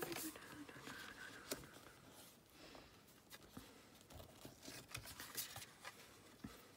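Faint rustling of paper and card being handled, with light scattered taps as the sheets are moved and set down.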